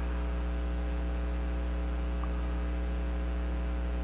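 Steady electrical mains hum, a low drone with a stack of higher overtones, unchanging throughout. There is one faint tick about two seconds in.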